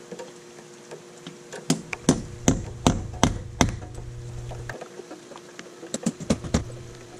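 Hammer striking a Bertha setting punch to drive and set a quarter-20 machine screw hurricane anchor in a masonry wall. There is a run of about six sharp metallic strikes roughly every half second, and a second, quicker run of lighter taps near the end.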